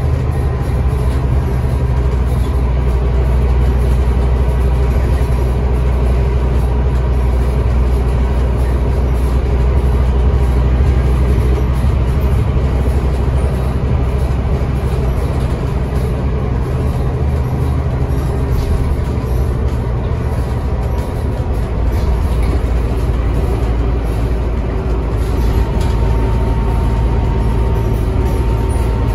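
Scania N270UD double-decker bus under way at a steady pace, heard from the upper deck: a steady low engine and drivetrain drone with road noise and a thin high whine.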